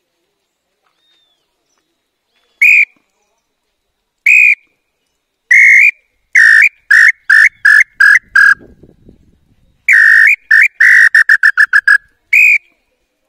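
Nambu (tinamou) call whistle blown by mouth to imitate the bird: three single clear notes a second or two apart, then a run of six notes sinking slightly in pitch, and after a pause a longer run that speeds up, with one last note near the end.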